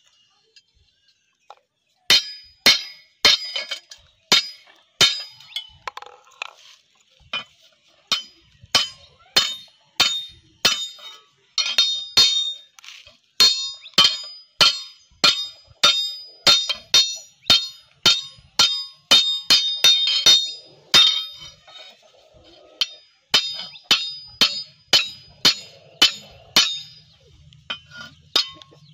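Hand hammer striking a billhook's iron handle on a small steel anvil block, riveting the handle to the blade. Steady blows about two a second, starting about two seconds in, each with a bright metallic ring.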